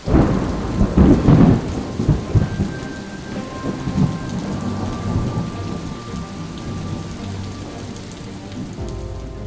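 Thunder: a loud crack right at the start that rolls on as a long rumble, slowly fading, with rain falling throughout.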